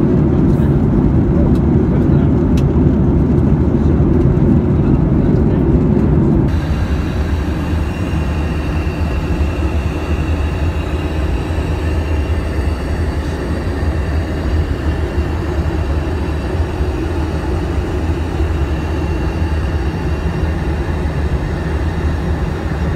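Steady cruise noise inside a Boeing 737-800 cabin: a deep rumble under a rush of air. About six and a half seconds in it changes abruptly to a quieter, thinner hiss with less rumble, as heard inside the aircraft's rear lavatory.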